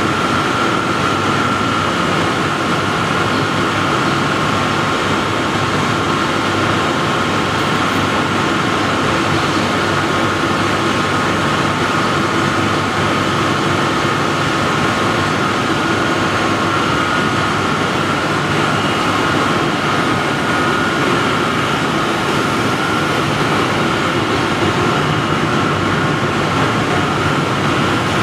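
Waste-plastic pyrolysis plant running: a steady, loud machinery noise with a constant high whine over it.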